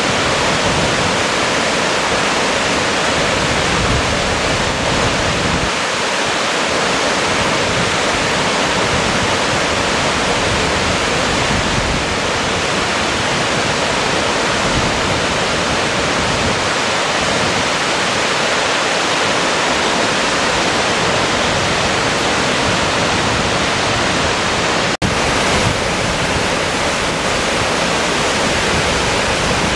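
Waterfall pouring down a rock face and cascading over the stream bed: a loud, steady rush of falling water. A split-second dropout comes near the end.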